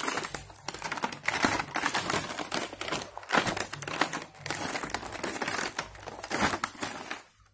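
Plastic packaging crinkling and rustling in the hands as an action-camera box is opened and its plastic-bagged contents handled, in a dense irregular crackle that stops abruptly just before the end.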